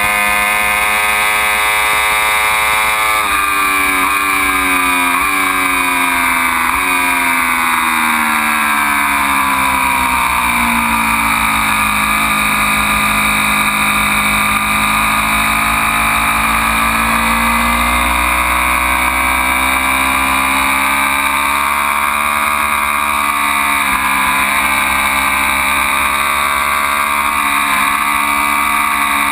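Ducati Panigale V4's V4 engine on a track lap. Several quick downshifts in the first seven seconds drop the revs in steps, the engine pulls low revs through the middle, then the revs climb steadily again under acceleration.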